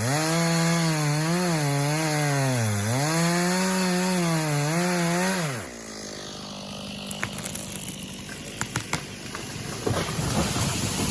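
Two-stroke chainsaw cutting under load through the final felling cut, its pitch dipping and recovering as it bogs in the wood. About five and a half seconds in the saw drops away, and sharp cracks and snaps follow, growing denser toward the end, as the hinge wood breaks and the tree goes over.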